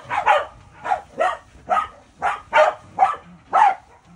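Welsh corgi barking over and over, about nine short barks at roughly two a second.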